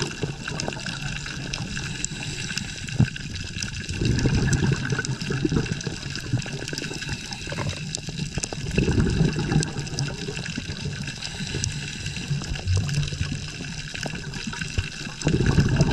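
Underwater sound of a scuba diver breathing through a regulator: surges of exhaled bubbles about every four seconds, over a steady crackle of faint clicks.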